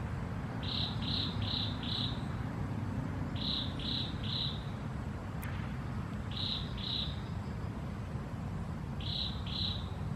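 Cricket chirping in short groups of two to four chirps every few seconds, over a steady low rumble. A single brief click comes about halfway through.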